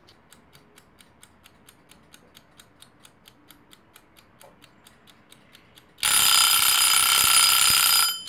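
Wind-up mechanical kitchen timer ticking steadily, then ringing loudly for about two seconds as it reaches zero, signalling that the set baking time is up.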